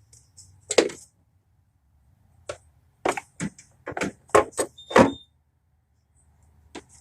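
Hand tools and metal parts knocking and clicking: about nine sharp, irregular knocks, most of them bunched between three and five seconds in, over a faint steady low hum.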